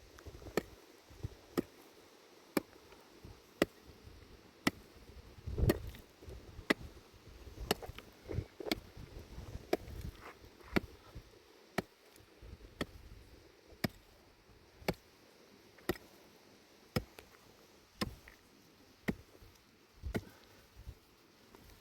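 Sharp chopping strikes of a hand tool, evenly spaced about one a second, with softer thuds between some of them.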